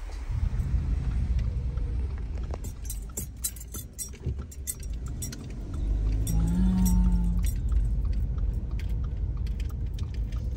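Car cabin noise while driving slowly: a steady low road rumble with many small light rattling clicks over it. A short pitched tone sounds briefly about six seconds in.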